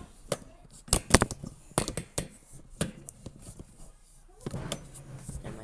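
Rummaging in a pantry: a string of sharp clicks and knocks with rustling as items on the shelves are handled.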